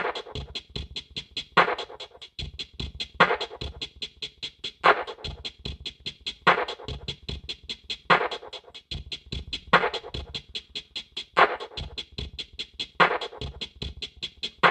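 Bass-test electronic music played through a JBL Boombox 3 with its grille off and its oval woofer exposed. It is a fast pulsing beat with deep bass, and a louder accent comes about every one and a half seconds.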